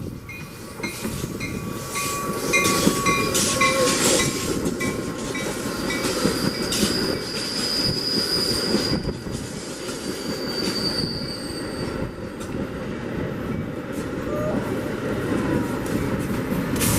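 Metra commuter train rolling along the track with a steady rumble of its cars on the rails. A high-pitched wheel squeal is held for a few seconds around the middle, then comes again briefly.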